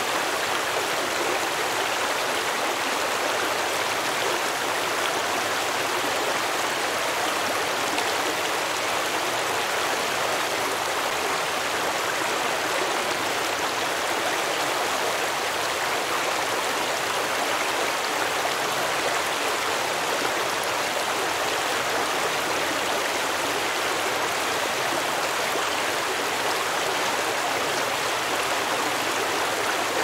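Mountain stream rushing over rocks and boulders in small rapids, a steady even rush of water.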